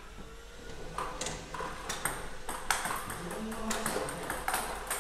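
Table tennis balls clicking in quick, uneven succession: celluloid-plastic balls bouncing on the table and being struck by a bat during machine-fed practice.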